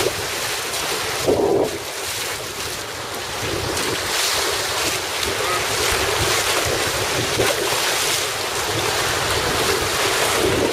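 Steady rushing noise of water and wind outdoors, with wind buffeting the microphone.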